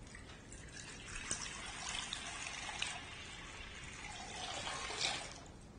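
Water poured into a baptismal font, a faint trickle and splash lasting about five seconds.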